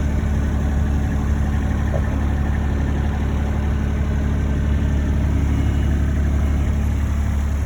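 Cat 301.8 mini excavator's diesel engine running steadily at idle, with a constant low hum and no revving.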